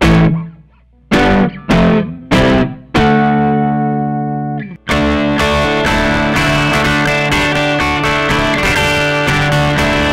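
Semi-hollow electric guitar played through an amplifier. Several single chords are struck and left to ring out, then from about five seconds in it is strummed continuously and quickly.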